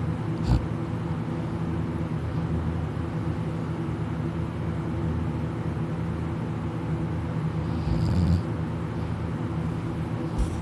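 A sleeping person snoring: a short snore just after the start and a longer one about eight seconds in, over a steady low hum.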